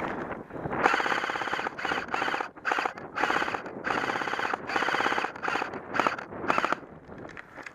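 Airsoft gun firing on full auto in a series of short bursts of rapid clicks, about eight bursts over six seconds.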